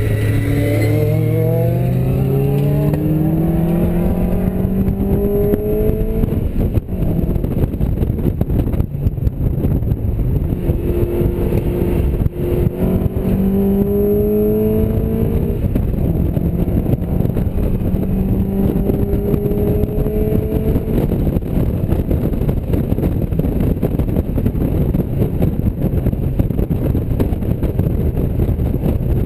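Mazda MX-5's four-cylinder engine heard from inside the cabin on track, its note climbing in pitch in three long pulls and falling back between them. Heavy wind and road rumble lie under it throughout.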